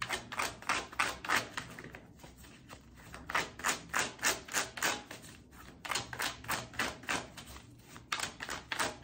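Tarot cards being shuffled by hand: a quick run of crisp card snaps, about four or five a second, broken by a few short pauses.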